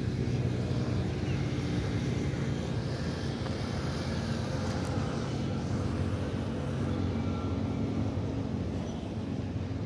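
Steady low engine hum with road traffic noise, running evenly without letup.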